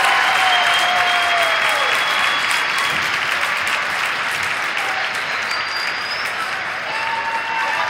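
Large crowd applauding and cheering, easing off a little toward the end.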